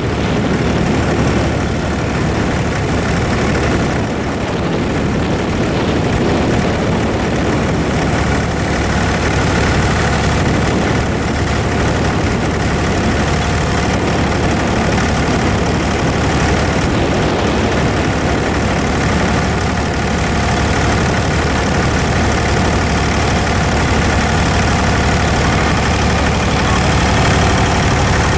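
Engine of an abra, a wooden Dubai Creek water taxi, running steadily: a low rumble with a few fixed tones held above it.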